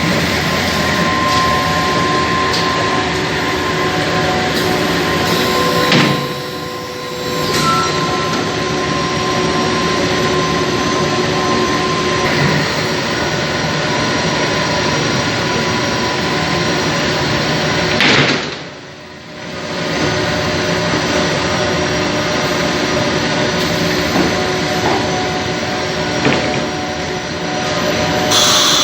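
Heavy-duty CNC nesting router with a 9 kW spindle running, a steady loud machine noise with several held tones. It drops off briefly twice and picks back up.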